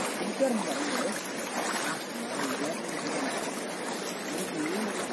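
Floodwater of the overflowing Meenachil River rushing steadily through a flooded lane and over submerged bushes.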